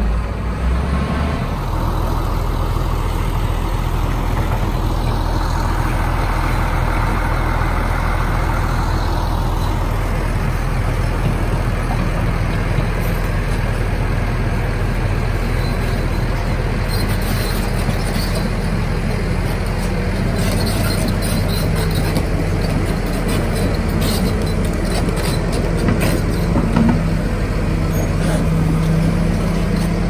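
Diesel engines of heavy crawler earthmoving machines running steadily under work, first a bulldozer and then a Hitachi crawler excavator. Sharp metallic clicks and clanks come through in the second half.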